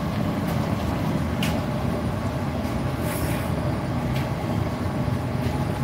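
Steady low rumble of a glassblowing studio's gas-fired furnace and propane glory hole with its blower running, with a few faint taps over it.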